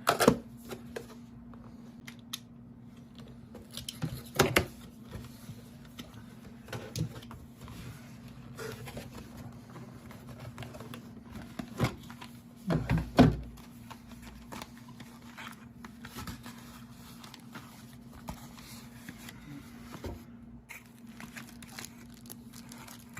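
A cardboard box being opened and its packaging handled: scattered knocks, rustling and crinkling, with a few louder thumps near the start, about four seconds in and about thirteen seconds in. A steady low hum runs underneath.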